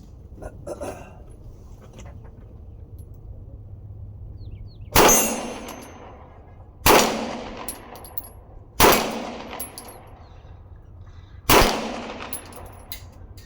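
Four pistol shots from a Springfield XD Mod 3 fired at steel targets, spaced about two seconds apart, each with a sharp crack followed by a ringing tail lasting about a second.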